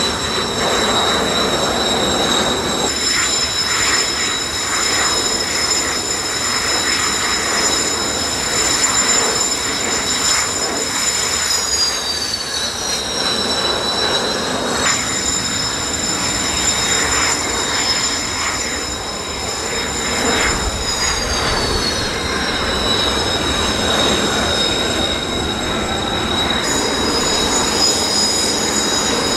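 Steady high-pitched whine of several Kawasaki T-4 jet trainers' turbofan engines, with some of the tones sliding down in pitch twice, over a rushing noise.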